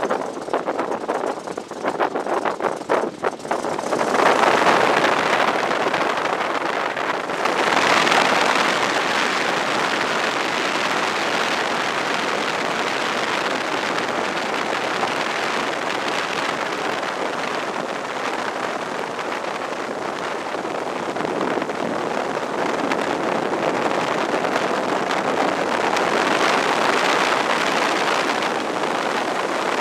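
The seven-cylinder Continental W-670 radial engine of a 1940 WACO UPF-7 biplane running while it taxis, heard from the open cockpit with wind buffeting the microphone. The sound is uneven and dips for the first few seconds, then turns louder and steadier.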